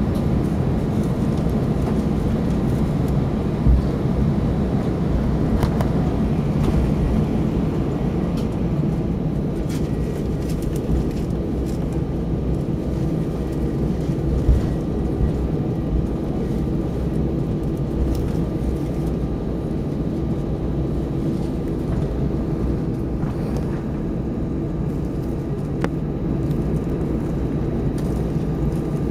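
Airbus A320 cabin noise while taxiing: the engines run steadily at idle as a low rumble with a faint steady whine. Two small bumps come through, a few seconds in and about halfway.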